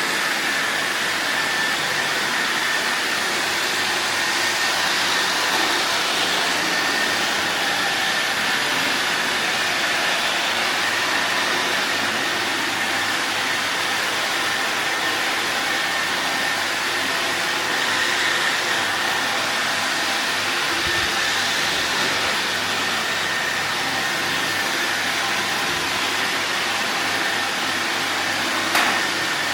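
Robot vacuum cleaner running: a steady whir with a constant high-pitched whine, and one sharp click or knock near the end.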